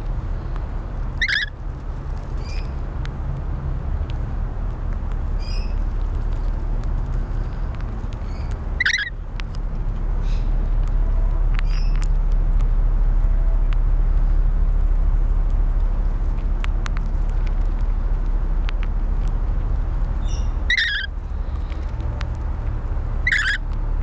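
Rainbow lorikeets screeching: four short, shrill squawks, one about a second in, one near the middle and two near the end, with a few fainter chirps between, over a steady low rumble.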